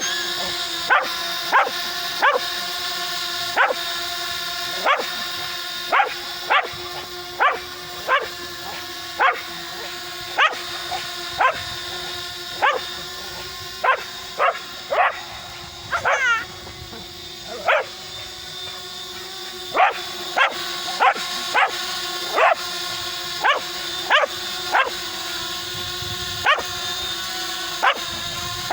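A dog barking again and again, roughly once a second, over the steady high hum of a DJI Spark mini drone's propellers. The barks are the loudest sounds.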